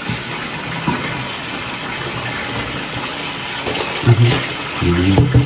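Steady hiss of frying in hot cooking oil on the stove, with a few brief low hums near the end.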